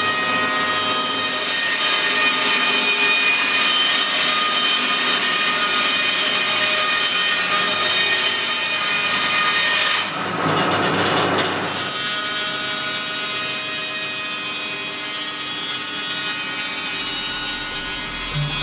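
Pilous CTR 750 EV band sawmill's blade cutting lengthwise through a squared timber: a steady whine over a sawing hiss. The sound changes briefly about ten seconds in, then the steady cutting goes on.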